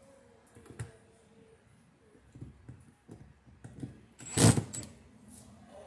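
Outdoor light fixture being handled and fitted against house siding: small knocks and clicks, then one brief loud burst about four and a half seconds in.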